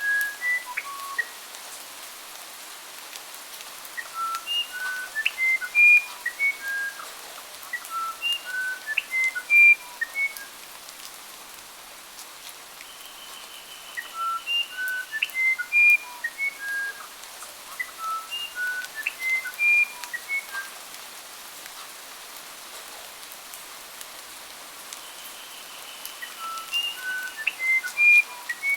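A songbird singing phrases of clear whistled notes that jump between pitches, each phrase lasting a few seconds, with pauses of several seconds between, over a steady faint hiss.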